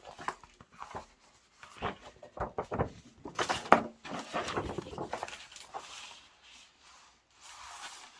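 A folded paper poster being opened out and handled: sharp crinkles and crackles of paper, then softer rustling.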